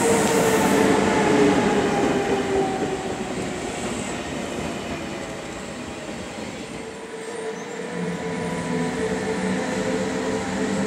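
SBB Re 460 electric locomotive and intercity coaches running past close by, wheels rumbling on the rails. A steady whine falls in pitch over the first few seconds as the train slows. The sound eases off, then a new whine and a rise in loudness come near the end as the locomotive passes again.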